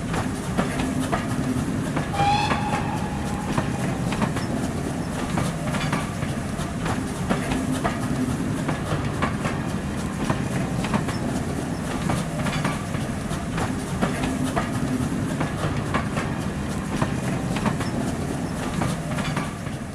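A train running along the track, with a steady rumble and a run of rhythmic clicks from the wheels over the rail joints. A short whistle sounds about two seconds in.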